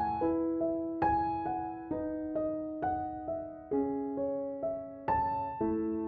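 Background music: a gentle piano playing a slow melody of single notes and chords.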